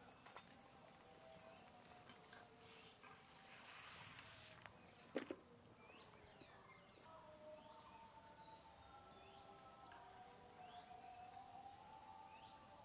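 Steady high-pitched insect drone, with short chirps repeating about once a second in the second half and faint whistled tones beneath. A single sharp knock sounds about five seconds in.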